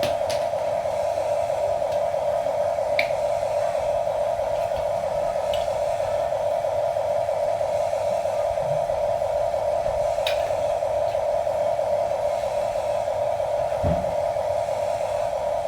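Small electric motor of a radio-controlled construction toy whirring steadily at one pitch, with a few light clicks and a low thump near the end.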